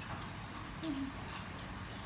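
A pause between spotted dove coo phrases: a steady faint hum, with one soft, short low coo note about halfway through.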